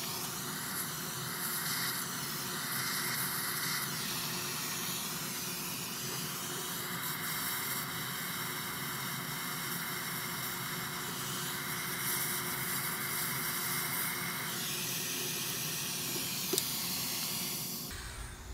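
Propane hand torch burning with a steady hiss as its flame heats the solder joint on a starter's field-coil terminal stud to melt the solder. The flame shuts off near the end.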